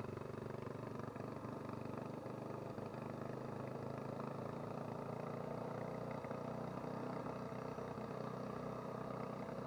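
Adventure motorcycle engine running at a steady, even pace while being ridden along a dirt road, with road and wind noise underneath.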